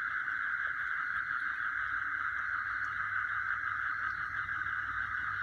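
Dense chorus of night insects calling continuously and evenly, a steady high-pitched shrill with no pauses.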